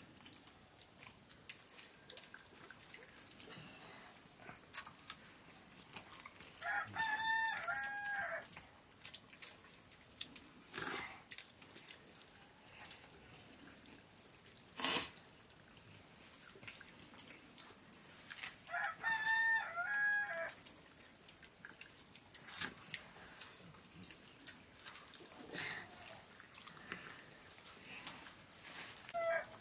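A rooster crows twice, about twelve seconds apart, each crow a drawn-out call of about two seconds. Between the crows come occasional sharp clinks of eating from steel plates, one louder about halfway through.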